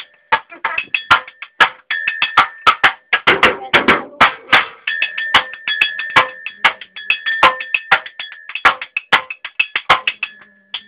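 Improvised drum kit made of cans being played: a quick, steady rhythm of sharp strikes, many of them with a ringing metallic tone, and a dense flurry of hits about halfway through.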